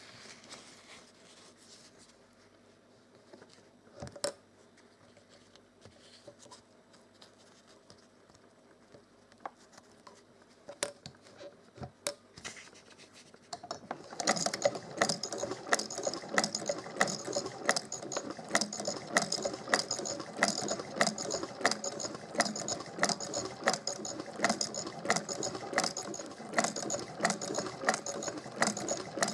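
Vintage Frister & Rossmann sewing machine stitching through fabric after being stripped and cleaned: a quiet stretch with a few light clicks, then about halfway through the machine starts up into a steady, rapid, rhythmic clatter of needle and mechanism.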